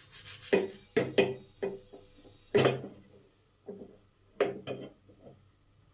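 Black chickpeas rattling and knocking in a small black kadai as it is shaken over a gas burner to warm them, in a series of short rattles, some coming in quick pairs.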